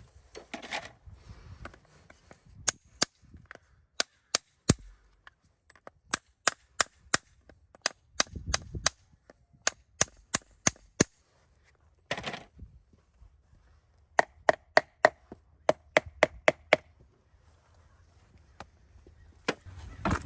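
Repeated sharp knocks or taps in irregular runs of a few a second; in a run about two-thirds of the way through, each tap rings briefly with a tone.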